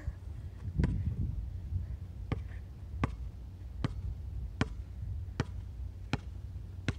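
A basketball being dribbled on an outdoor hard court: about eight sharp bounces, evenly spaced, one every three-quarters of a second or so.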